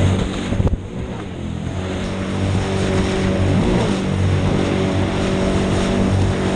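Sea-Doo Spark jet ski's three-cylinder Rotax engine running steadily; the sound drops briefly about a second in, then builds back up.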